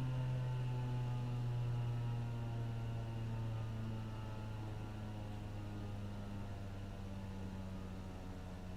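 Federal Signal 2001-130 outdoor warning siren winding down at the end of its test, one steady tone slowly falling in pitch and fading.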